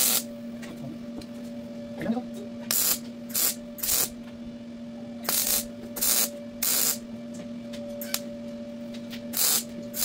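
Electric arc welding in short bursts of about half a second each, about eight in all, as a fitting for an oxygen sensor is tack-welded onto a steel exhaust pipe. A steady hum runs underneath.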